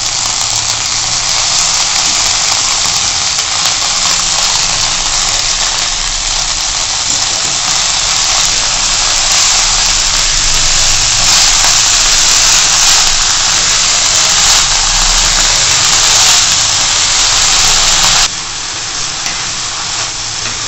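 Freshly washed ponnanganni keerai (dwarf copperleaf greens) sizzling loudly in hot sesame oil in an aluminium kadai as they are stirred with a wooden spatula. The sizzle drops off suddenly near the end.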